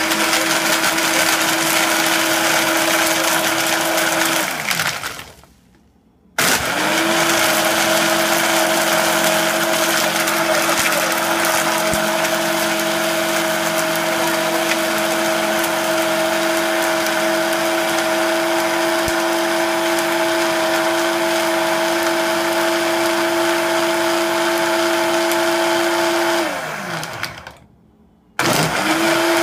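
Frappe maker's built-in blender running its blend cycle with a steady motor whine. It winds down with a falling pitch and stops twice, about 5 seconds in and again near the end, each time starting up again after about a second.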